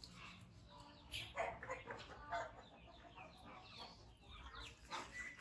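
Chickens clucking: a run of short calls.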